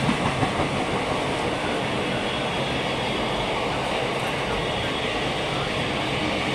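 Indian Railways passenger train coaches passing a station platform at speed: a steady rush of wheels on the rails.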